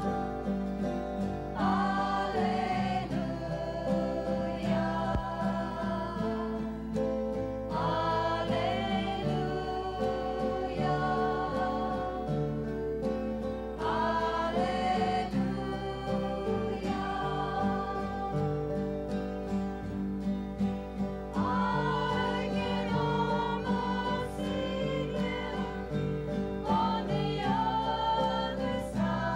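A small mixed choir singing a sacred song together, accompanied by two acoustic guitars. The sung phrases start anew about every six seconds over the steady guitar backing.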